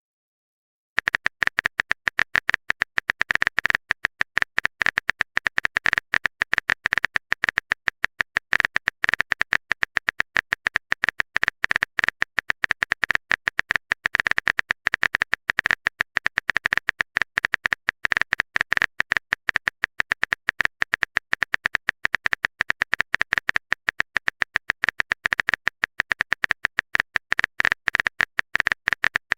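Typing sound effect: a fast, unbroken run of keyboard clicks, starting about a second in.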